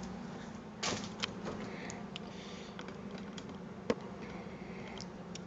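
Handling noise: scattered light clicks and taps, the sharpest about four seconds in, over a steady low hum.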